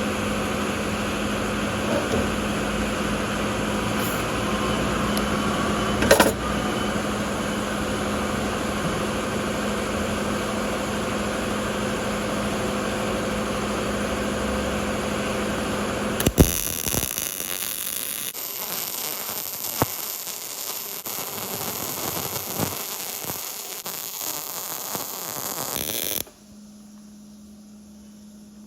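A steady machine noise with a low hum runs for the first half. A sharp click follows, then about nine seconds of crackling, hissing arc welding, which cuts off abruptly and leaves a faint steady hum.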